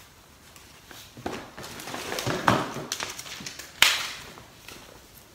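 Rustling and bumping of clothes being handled: fuzzy sandals on a plastic hanger set aside and a sweater picked up, with a sharp click about four seconds in.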